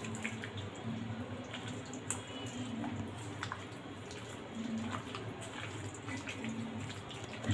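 Hand squelching chicken pieces through a thick yogurt-and-spice marinade in a steel bowl, with scattered small clicks against the bowl. A steady low hum runs underneath.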